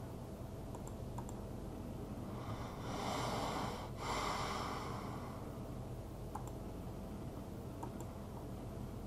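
Online slot machine game sound effect: a breathy blowing whoosh in two puffs, about three and four seconds in, as winning symbols are cleared from the reels. Faint clicks sound now and then over a low steady background.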